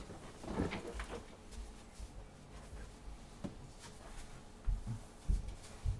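Rustling as a person gets up from a desk chair, then three low thumps of footsteps about half a second apart near the end.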